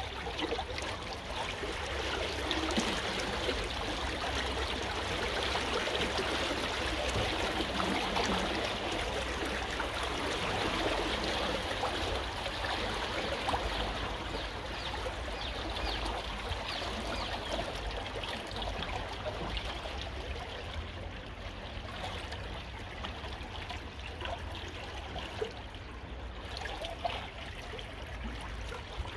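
River water flowing fast after heavy rain: a steady trickling, with many small splashes, over a steady low rumble.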